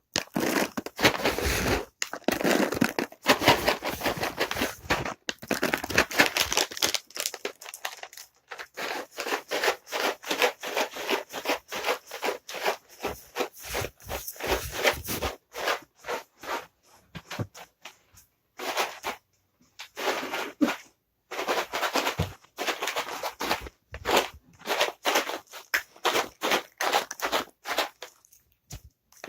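Dry cat treats being shaken in their container: a rapid, loud rattle in spells of several seconds, broken by short pauses.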